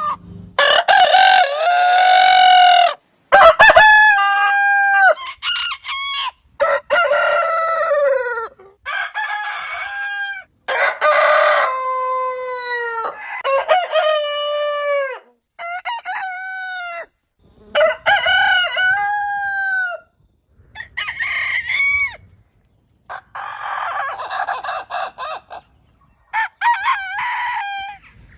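Roosters crowing, about a dozen separate crows one after another, each starting and stopping abruptly with short silences between them.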